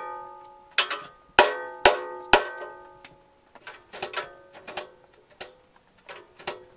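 Worn steel plate on a loader bucket's lip clanging as it is wrenched by hand, each strike ringing on: five sharp clangs in the first two and a half seconds, then lighter, more scattered clanks.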